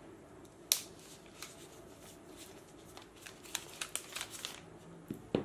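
Thin clear plastic protective wrap being peeled off a new smartphone, crinkling and crackling in irregular spurts, with a sharp snap a little under a second in and a thicker run of crinkles around three to four and a half seconds in.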